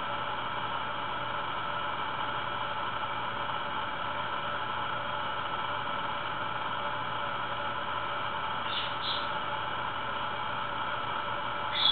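Steady background hiss with a few faint constant tones in it. Brief high chirps come twice about nine seconds in and once more just before the end.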